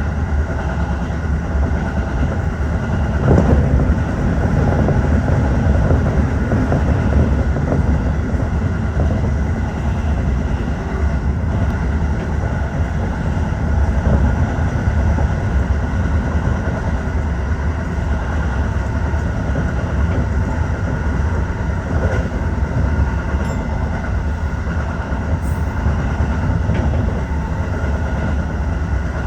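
Tokyo Metro 15000 series electric train running at speed, heard inside the front car: a steady low rumble of wheels on rail with faint steady tones above it, and an occasional knock from the track.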